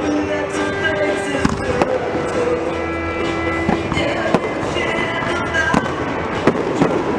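Fireworks show: irregular sharp bangs and crackling from bursting shells, with music playing alongside.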